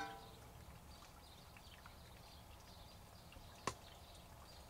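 Near silence: faint outdoor background, with a short fading tone at the very start and a single sharp click about three and a half seconds in.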